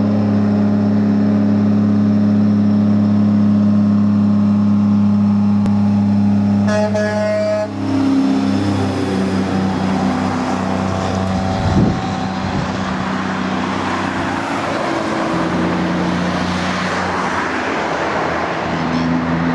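Heavy truck's engine brake (Jake brake) barking through straight 7-inch exhaust stacks, a steady deep drone on the descent. It shifts pitch about eight seconds in as the truck passes close by, with a wash of tyre and trailer noise and a knock a few seconds later.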